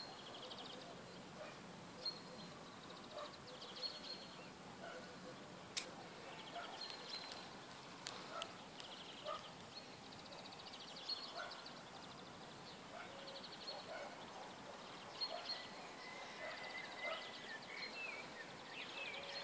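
Small songbirds singing: short, rapid trilled phrases repeated every second or two, with scattered lower chirps and a few sharp clicks.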